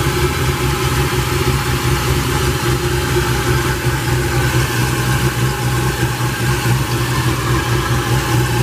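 Turbocharged LS V8, swapped into a Mazda Miata, idling steadily shortly after its first start following an oil-leak repair. Sounds great.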